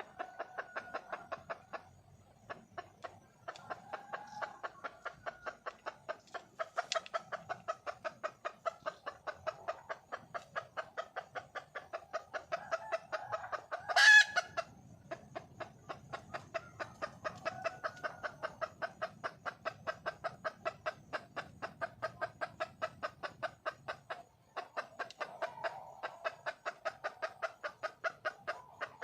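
Red junglefowl hen giving a long run of rapid, evenly spaced clucks, several a second, with a couple of brief pauses and one louder, sharper call about halfway through. The calls are the hen's mate-calling.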